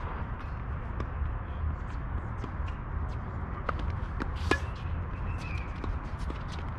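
Tennis balls being struck and bouncing on an outdoor court: scattered sharp knocks, the loudest about four and a half seconds in, over a steady low rumble.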